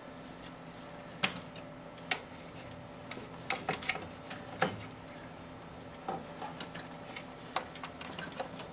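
Irregular light clicks and taps of plastic and metal parts being handled inside the open chassis of a DLP television, about a dozen scattered ticks, over a faint steady hum.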